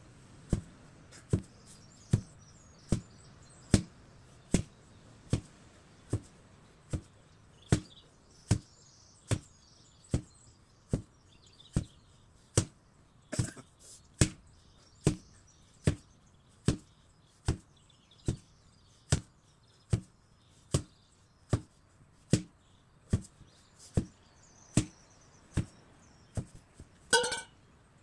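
An 8 kg sledgehammer striking again and again at an even pace, about five blows every four seconds. About 27 seconds in there is a single louder, ringing sound that stands apart from the blows.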